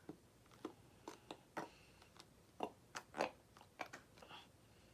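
Nearly empty, clogged plastic face-mask container being squeezed over and over: faint, irregular clicks and crackles, with nothing coming out.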